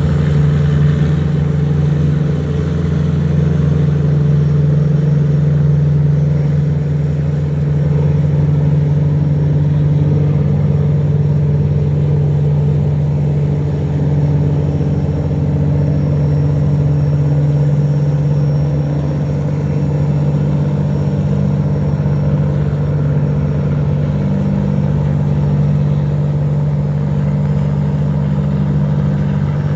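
Engines of the motorboats towing a string of cargo barges upstream, running steadily under load against the current: a deep, even drone with little change.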